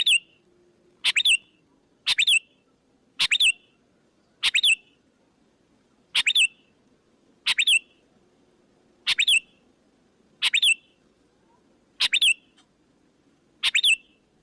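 Sooty-headed bulbul lure call: a short, sharp double note repeated about eleven times, a second or so apart, each call the same.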